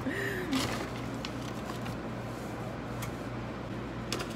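Quiet room tone with a steady low hum. A short hummed vocal sound comes right at the start, then a few faint clicks and rustles, most of them near the end, from a plastic bag of frozen cranberries being handled as berries are set on muffin batter.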